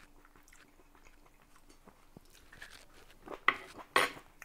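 A person chewing and biting a piece of cherry tomato: faint mouth sounds, then two louder bites near the end, about half a second apart.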